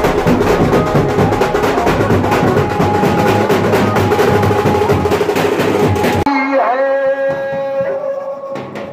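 Fast, dense dhol-tasha drumming. About six seconds in it cuts off abruptly to a melody of held notes, one of them gliding, with little drumming under it.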